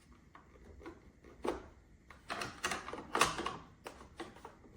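A series of light plastic clicks and knocks from the espresso machine's removable drip tray being lifted and set back in place, irregular and spread over a few seconds.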